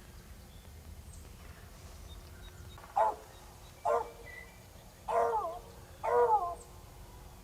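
Wild turkey calling four times, the calls loud, pitched and falling, the last two longer.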